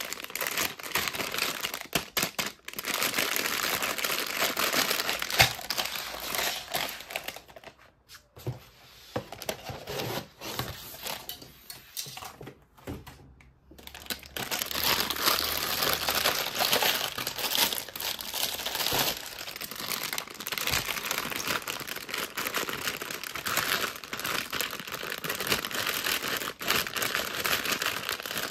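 Toy packaging being unwrapped and handled, crinkling steadily, with two short breaks about a third and about halfway through.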